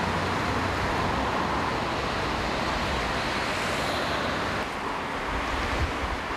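Steady noise of road vehicles running, with a continuous low rumble.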